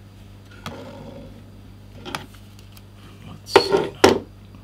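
Two light clicks of small metal parts being handled on a desk, then two short, loud vocal sounds close together near the end.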